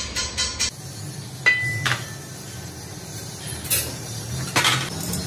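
Steel truck wheel rim clanking against the metal of a rim-working machine as it is handled and seated: a few separate sharp metallic knocks, the first leaving a brief ringing tone, over a low steady hum.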